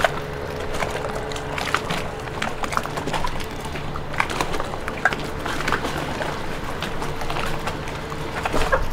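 Boat engine running steadily with a constant hum, under scattered clicks and taps.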